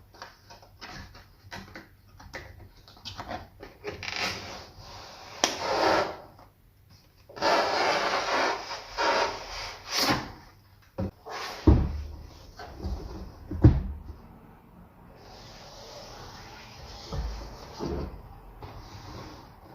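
Unboxing handling sounds: packaging being rubbed and slid in several long scrapes, with scattered clicks and taps, and a few dull thumps in the second half.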